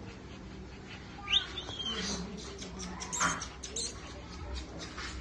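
Golden retriever puppies giving a few short, high-pitched rising whines and yips.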